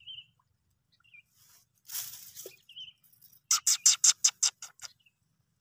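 Outdoor bird calls: a few short high chirps, then a fast chattering rattle of about ten sharp notes, roughly eight a second, a little past halfway, which is the loudest sound. A brief rustle comes about two seconds in.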